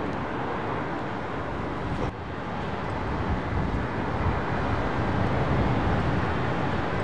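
Airbus A321 airliner's jet engines on landing, a steady rush mixed with deep rumble, with a brief break about two seconds in.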